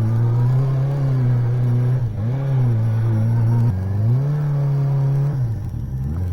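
Suzuki GSX250S Katana's four-cylinder engine running under way. Its pitch drops and climbs back twice, about two and about four seconds in, as gears are changed, then falls away near the end.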